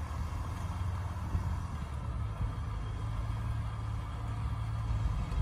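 Jeep engine running with a steady low rumble under the load of a recovery pull in snow, growing slightly louder about halfway through.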